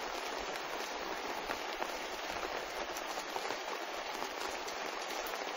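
Thunderstorm rain falling steadily on tree leaves and a roof edge with its gutter: an even hiss with scattered drop taps.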